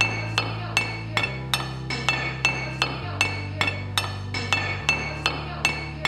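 A metal rod striking an engine intake manifold in an even beat of sharp metallic clinks, nearly three a second, each ringing briefly. Underneath, a low bass note changes pitch about every two seconds, so the strikes are set into a looped musical rhythm.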